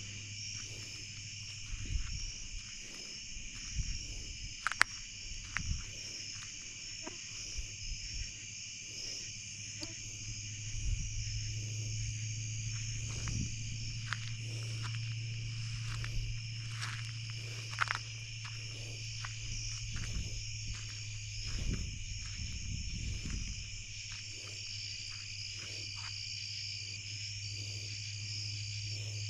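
Steady night chorus of crickets and other insects, with irregular rustles and snaps of footsteps moving through woodland brush and a low steady hum underneath.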